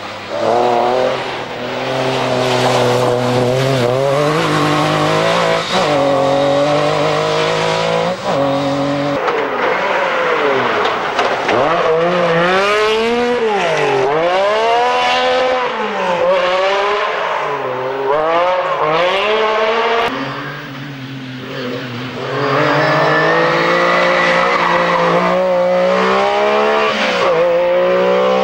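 MG Metro 6R4 rally cars' V6 engines revving hard at full throttle, the pitch climbing and dropping again and again through gear changes and lifts. It comes as a string of separate runs joined by edits, with a short lull a little past the two-thirds mark.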